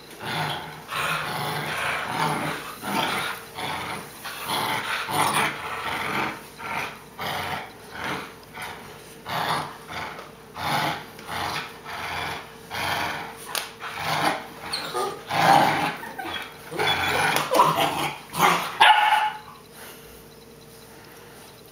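Two Boerboel puppies growling and barking in rough play while tugging on a toy, a run of rapid bursts that stops a couple of seconds before the end.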